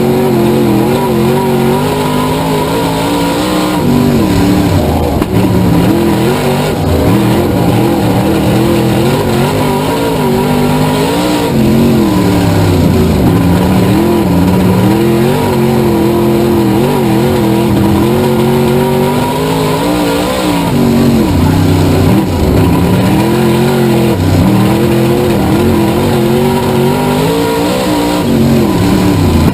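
Dirt-track race car engine at racing speed. Its pitch rises on the straights and drops off as it lifts for the corners, about every eight or nine seconds, lap after lap.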